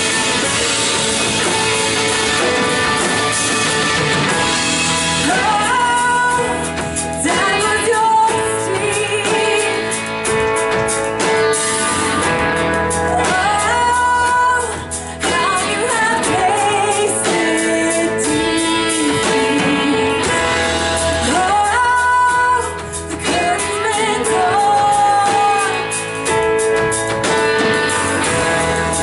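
Live worship band playing a song with guitar and singing voices; the sung melody comes in about six seconds in.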